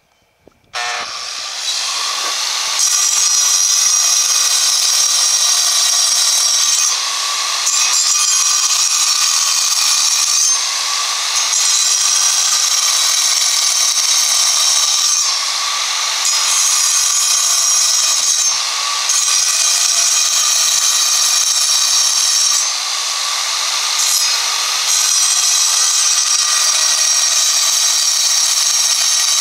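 Large angle grinder starting up about a second in, then cutting into a block of stone. Its loud, steady sound dips briefly every few seconds.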